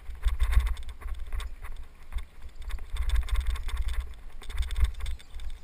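Wind buffeting a bicycle rider's helmet-camera microphone, the low rumble swelling and fading in gusts, over the crunch and rattle of bike tyres rolling on a dirt trail.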